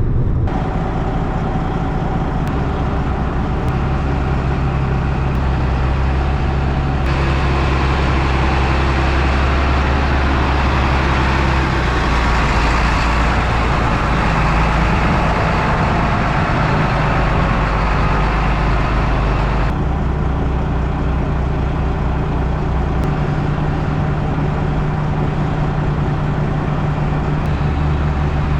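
Semi truck's diesel engine running steadily on the road, heard from inside the cab. The engine note shifts pitch several times, and a louder rush of road noise comes in from about 7 to 20 seconds in.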